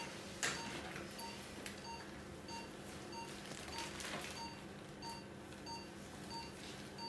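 Patient monitor's pulse-oximeter tone beeping in time with the patient's heartbeat, about one and a half short beeps a second, over the steady hum of the anaesthetic machine. A sharp click comes about half a second in and a short hiss near four seconds.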